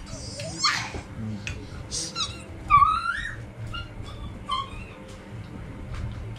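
Several short high-pitched cries from a pet animal, bending up and down in pitch, the loudest a rising cry about three seconds in, over light clinks of spoons on plates.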